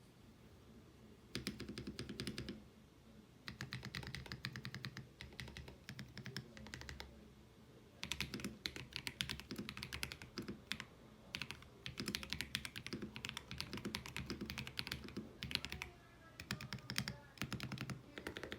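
Freebird60 60% mechanical keyboard with Akko Lavender Purple tactile switches being typed on: rapid runs of keystroke clacks in bursts of a few seconds, broken by short pauses.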